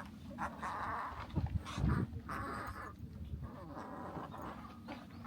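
A small dog whining in a run of short cries, with two low thumps about a second and a half and two seconds in.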